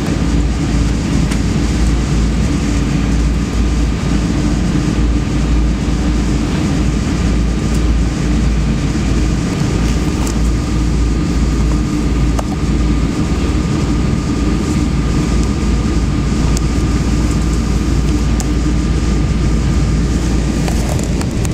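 Steady cabin noise of a Boeing 777-200ER taxiing: the engines running at low power over a wavering low rumble, with a faint steady whine above.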